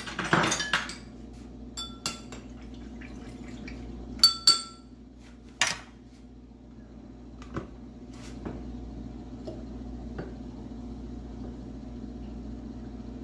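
Glass and kitchen utensils clinking several times, sharp ringing taps, after a short rustle at the start; over the second half, a drink being poured from a blender jug into a glass.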